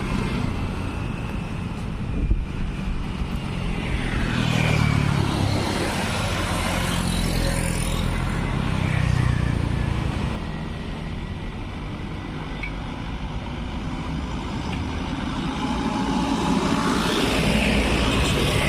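Road traffic, cars and motorcycles, passing over a railway level crossing, with engines swelling as vehicles go by.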